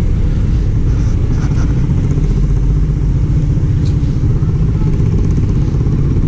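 Motor vehicle engine running steadily, a continuous low rumble with fine rapid pulsing.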